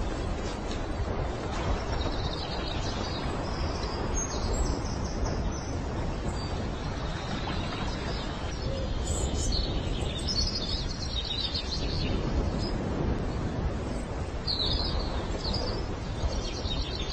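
Scattered short, high bird chirps over a steady background of outdoor noise.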